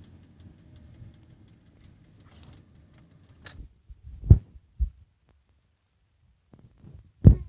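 A hiss with rapid rattling clicks and a low rumble that cuts off suddenly, followed by a few short, dull low thumps.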